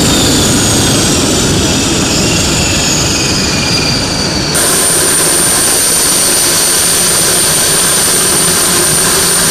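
Turbine whine and rushing engine noise from a military C-130 Hercules transport aircraft: several high whines slide down in pitch over the first four seconds or so, then, after a sudden change, one steady high whistle holds over the loud rushing noise.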